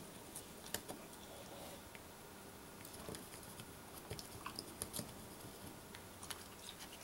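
Faint, irregular small clicks and crackles from desoldering: a soldering iron working a solder joint while the circuit board is pried up.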